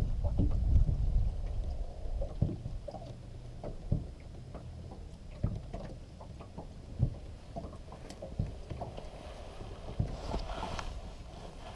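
Small waves slapping against a boat's hull, a short knock about every second and a half, over a low steady rumble of wind and water.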